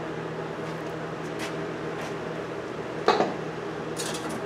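Metal knocking as a rear coil spring and shock are worked out of the car's suspension: one sharp knock about three seconds in and a few light clinks near the end, over a steady low hum.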